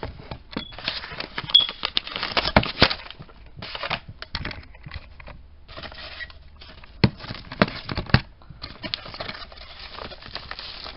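White paper mail packaging being unwrapped and torn open by hand, with irregular crinkling and rustling. Several sharp clicks and knocks come from handling it on a tabletop cutting mat.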